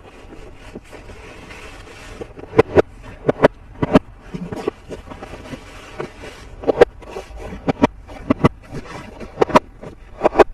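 Plastic toy pieces and packaging being handled: a dozen or so irregular sharp clicks and taps over steady rustling, with the loudest clicks clustered a few seconds in, around the middle and near the end.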